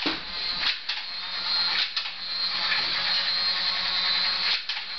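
Small electric motor whirring steadily, with a few clicks, cutting off about four and a half seconds in.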